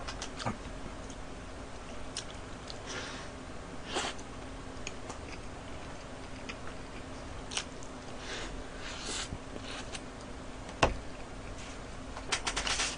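Quiet chewing and mouth sounds of a person eating a burger, with scattered soft clicks and rustles over a faint steady hum, and one sharp knock near the end.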